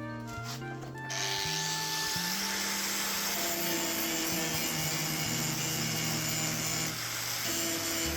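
Background music, joined about a second in by the steady rasping noise of a tool working on the car's bodywork, which runs on under the music.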